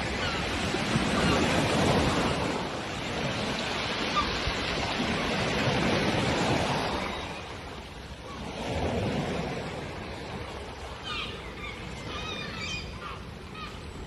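Sea waves breaking and washing up over a pebble beach, surging and ebbing every few seconds. Seagulls call several times over the surf near the end.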